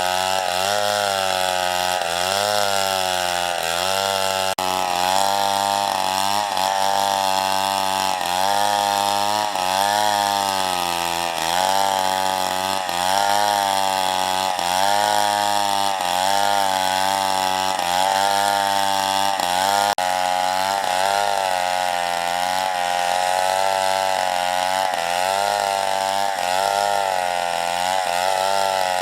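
Two-stroke chainsaw cutting through wood, running continuously under load. Its engine pitch dips and recovers about once a second as the chain bites and clears.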